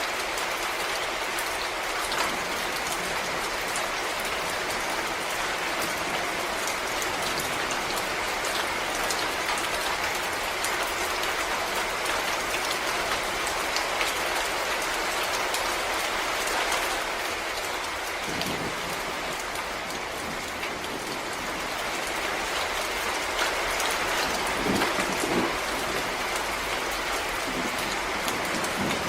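Steady rain falling on forest leaves and ground, a dense patter of individual drops over a continuous hiss, with a few heavier drops landing close by.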